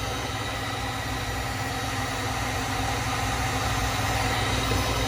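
Electric heat gun running with a steady whir, blowing hot air on an iced-up refrigeration coil to melt the ice.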